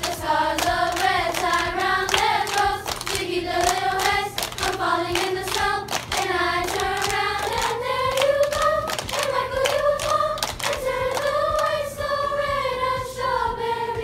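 Middle-school choir singing a song together, with sharp hand claps keeping a steady beat under the voices.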